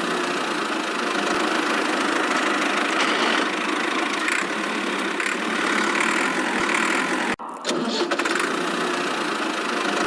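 A small engine running steadily. The sound breaks off abruptly for a moment about seven seconds in, then carries on.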